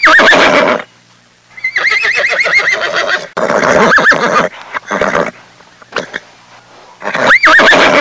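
Horse whinnying several times, the calls long and quavering with a wavering high pitch, with short gaps between them.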